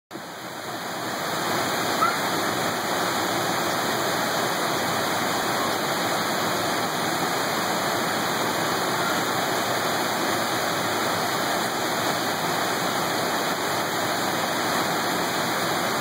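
Water pouring over a dam spillway into the gorge below: a steady, dense rush of falling water that fades in over the first second and then holds even.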